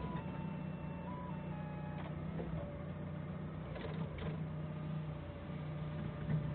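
Forklift engine running steadily, with a few light knocks about two and four seconds in and a faint tune of stepping electronic tones over it.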